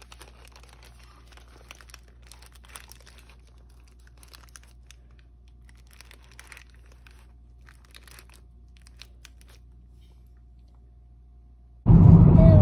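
Paper sandwich wrappers crinkling faintly in scattered rustles as hands press and arrange wrapped sandwiches in a glass dish. Just before the end it cuts abruptly to loud road noise from a moving car.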